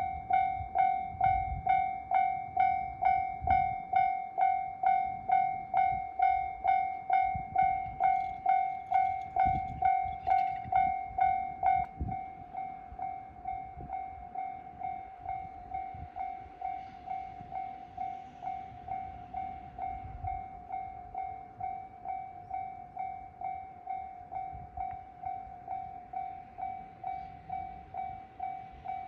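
Level crossing warning bell ringing at about two dings a second, a steady repeated clang. About twelve seconds in it drops markedly in volume and keeps ringing more quietly.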